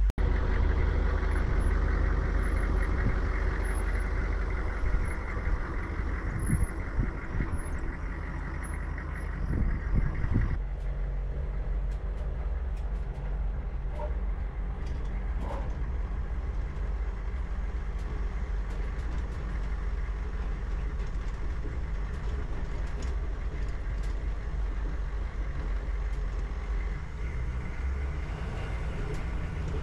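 Humvee's diesel engine and drivetrain running under way on a dirt track, heard from inside the cab, with scattered knocks and rattles in the first several seconds and a change in tone about ten seconds in. The transmission seems to be stuck in first gear, so the engine revs high.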